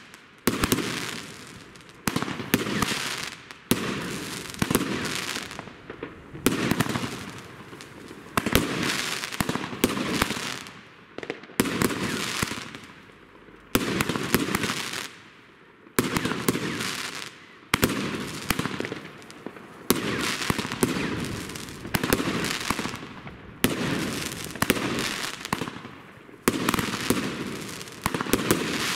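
Consumer fireworks firing shot after shot, about one every one and a half to two seconds. Each shot is a sharp bang that trails off in a fading crackle.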